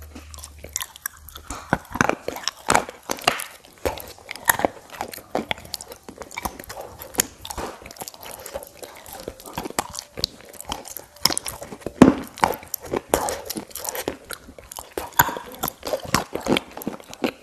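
Close-miked crunchy biting and chewing of a brittle, powdery food eaten by the spoonful: a dense run of irregular sharp crunches, with a few louder bites around the middle.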